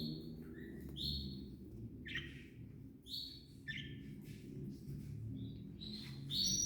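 Pet birds chirping: short high calls about once a second, several of them sliding down in pitch.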